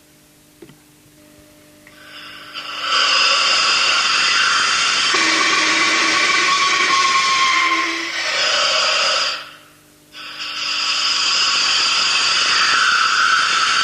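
Clément-Desormes gas siren sounding: gas flow between its fixed and movable plates sets the lower plate vibrating, giving a loud, harsh whistle of several steady tones over a hiss. It starts about two and a half seconds in, drops out briefly around ten seconds, then sounds again.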